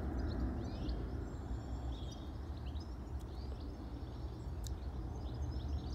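Faint birds chirping now and then over a steady low rumble of outdoor background noise.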